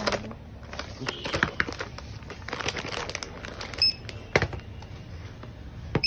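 Goods being handled at a shop checkout: plastic packaging crinkling and items knocked down on the counter. A barcode scanner beeps twice, about four seconds in and again at the end.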